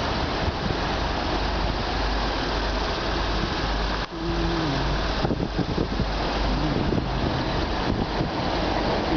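Steady outdoor noise: wind buffeting the microphone over a constant low rumble of traffic. A few brief wavering hums come through, the first about four seconds in.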